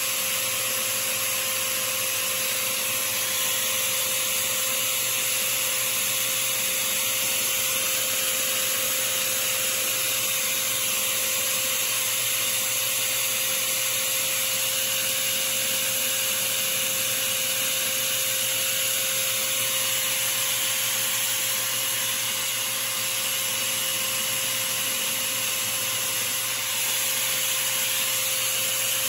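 Small power tool's motor running steadily with a steady hum, spinning a screw in its chuck, while sandpaper is held against the spinning screw head, adding a rubbing hiss.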